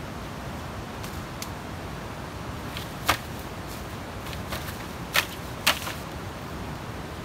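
Sharp wooden clacks of green bamboo poles knocking together as they are handled, a few faint ones and three loud ones at about three, five and five and a half seconds in, over a steady background hiss.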